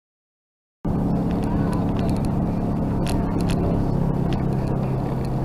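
Silence, then, about a second in, the steady hum and road noise inside a moving car's cabin, with a few light clicks.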